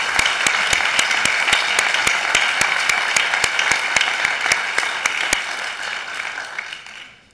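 Crowd applause in a large hall, with one person clapping close to the microphone at about three to four claps a second. The close clapping stops about five seconds in, and the applause dies away near the end.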